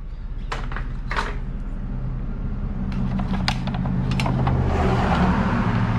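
Vehicle running, heard from inside the cab: a steady low engine hum with a few light clicks, and a rush of noise that swells about four seconds in.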